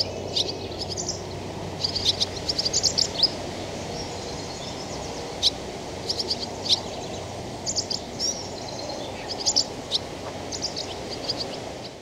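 Barn swallows chirping: short, high chirps in quick clusters, over a steady low outdoor rumble.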